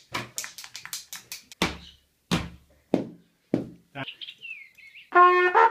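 Household objects made to sound one after another: a quick run of sharp clicks and taps, then four loud knocks about two-thirds of a second apart, a brief falling squeak, and near the end a buzzing horn-like toot starts.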